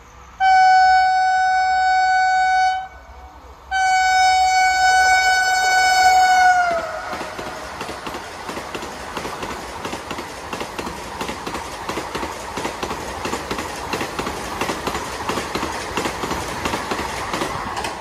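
Vande Bharat Express trainset sounding two long horn blasts as it approaches at about 130 km/h, the second dropping in pitch as the front of the train passes. Its coaches then rush past with a fast, regular clatter of wheels on the rails.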